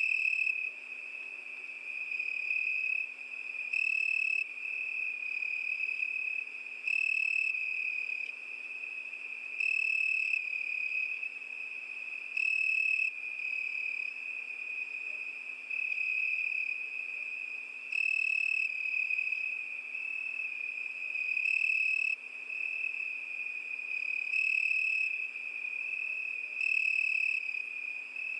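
Crickets chirping: a steady high-pitched trill that runs on without a break, with a louder stretch of under a second about every three seconds.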